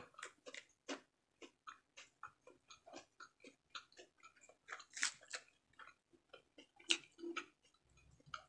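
Faint close-miked eating sounds: chewing of fried fish and the crinkle and rustle of lettuce leaves handled by fingers, heard as scattered soft clicks, smacks and crackles.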